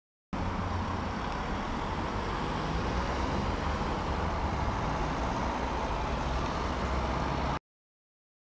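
Steady urban road-traffic noise: a low rumble and hiss of cars on a city intersection, with no single engine standing out. It starts just after a cut from dead silence and cuts off to silence again about a second before the end.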